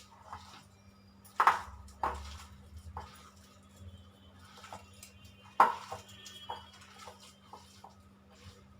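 A kitchen utensil knocking and scraping against a bowl while boiled raw banana is mashed and mixed with spices, with scattered light clicks and three louder knocks, about one and a half, two and five and a half seconds in.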